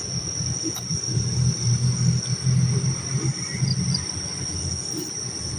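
Crickets chirring steadily in a high, continuous drone, over a low uneven rumble and a couple of faint clicks.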